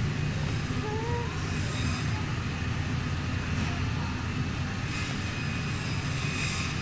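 Steady low rumble and hum of supermarket background noise, with a faint voice about a second in.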